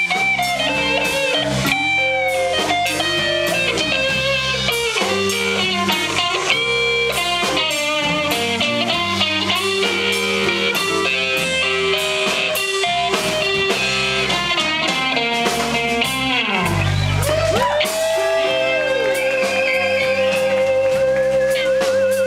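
Live blues band playing, with an electric guitar lead of bent, wavering notes over electric bass and drum kit. Near the end a long held note with vibrato rings over the band.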